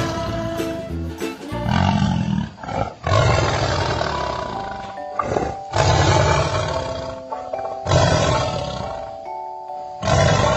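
A tiger growling and snarling in a run of about five long, rough roars, a second or two apart, over light background music.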